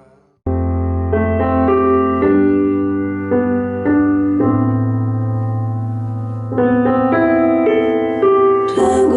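Recorded music played through a Technics SU-7700K stereo amplifier: a new track starts about half a second in with sustained keyboard chords over a bass line, the chords changing every second or so. A brighter layer comes in near the end.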